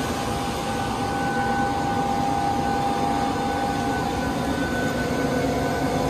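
A steady rushing drone with a faint steady whine over it: a dam's turbine and the water running through it.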